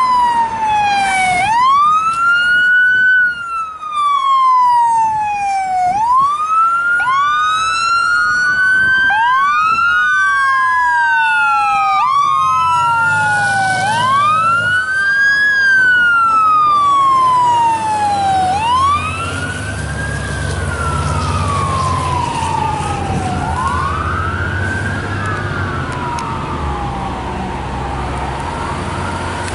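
Fire truck sirens wailing, each cycle rising quickly and falling more slowly, with two sirens overlapping out of step. A heavy truck engine rumbles underneath from about halfway through, and the sound eases off a little shortly after.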